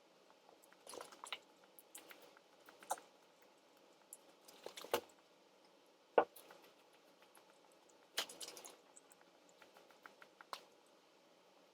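A person eating chicken nuggets: chewing and handling food, heard as scattered small clicks, taps and brief rustles, the sharpest a single tap about six seconds in.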